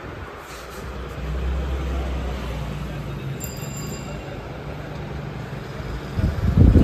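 Steady low rumble of shop background noise with faint voices, and a loud low thump near the end.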